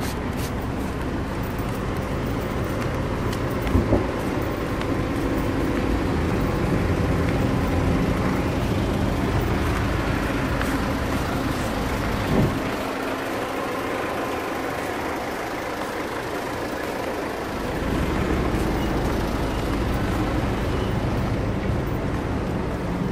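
City street traffic noise: vehicles running on the road, with a steady low hum under it. Two brief knocks, about four seconds in and near the middle.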